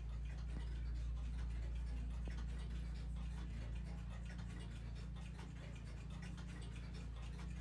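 Mechanical clocks ticking, the ticks of more than one clock falling unevenly against each other, over a steady low hum.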